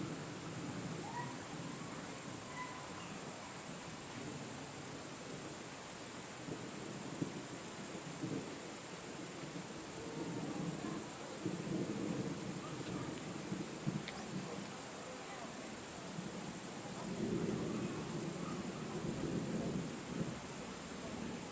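Crickets trilling in a steady, unbroken high-pitched chorus, with a low rumble rising and fading underneath.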